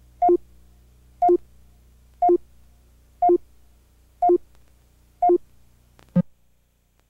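Countdown-leader sync beeps on a commercial's slate: six short two-tone beeps, one a second, each a higher note dropping to a lower one, over a faint low hum. They end with a single shorter blip, and the hum cuts off with it.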